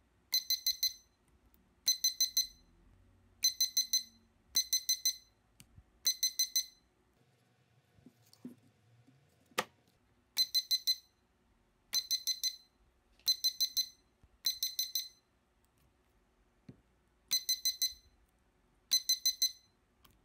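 Portable spot welder beeping as it welds nickel strip onto 18650 lithium-ion cells: about eleven short bursts of four or five quick high beeps, one burst per weld, with a pause in the middle broken by a sharp click.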